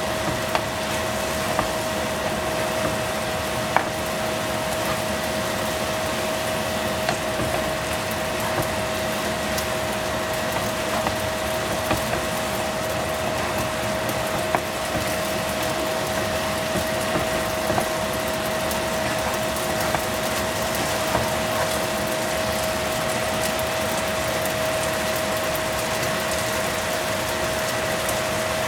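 Mushrooms bubbling in sauce in a frying pan while a spatula stirs them, making scattered light clicks against the pan, over a steady hum with one constant tone.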